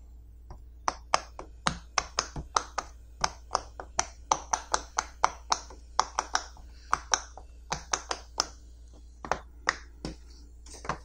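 Fingers pressing the silicone bubbles of a pop it fidget toy one after another: a quick run of sharp pops, a few a second, that thins out near the end.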